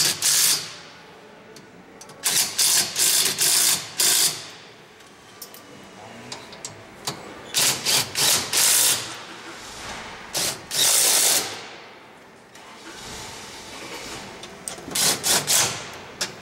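Power impact gun run in repeated short bursts, driving in the 13 mm roll cage mounting bolts, with pauses between the groups of bursts.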